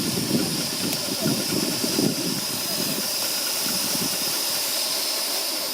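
Steady hiss of steam from a Gauge 1 live-steam locomotive, with an uneven low rumble over the first two and a half seconds. The sound starts abruptly at a cut.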